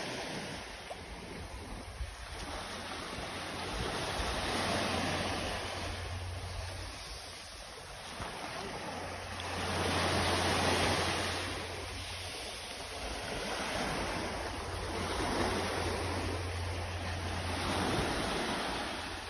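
Small waves breaking and washing up a sandy beach, the surf swelling and easing every few seconds, over a steady low rumble.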